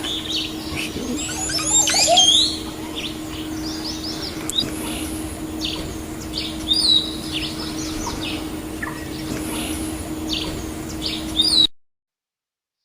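Songbirds chirping and calling in many quick, sweeping notes over a steady low hum and background hiss; it all stops suddenly near the end.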